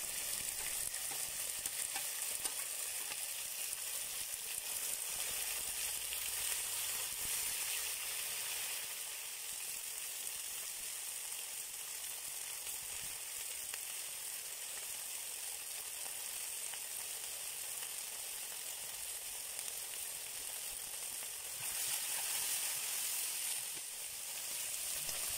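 Beef strips sizzling as they fry in hot oil in a kazan: a steady high hiss that swells briefly near the end.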